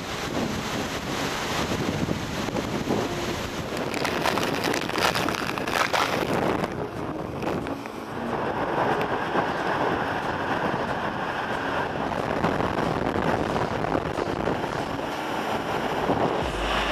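Category 3 hurricane winds and driving rain, a continuous noise with heavy wind buffeting on the microphone. The noise is harshest between about four and seven seconds in, dips briefly, then settles into a steady noise.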